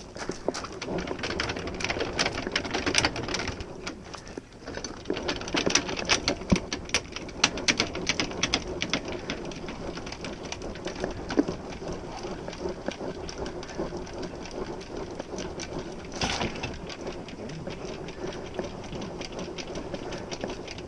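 Boat trailer's tongue jack being hand-cranked: a dense, steady run of rapid clicks and gear grinding as the jack is wound up until its foot clears the ground.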